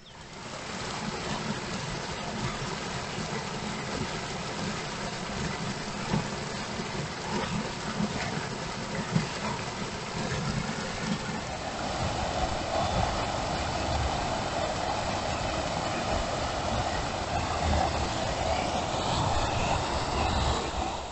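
Water rushing steadily through a small concrete sluice and over a river weir. About halfway through the sound shifts to a different fall of water, with a stronger, brighter rush in the middle of the range.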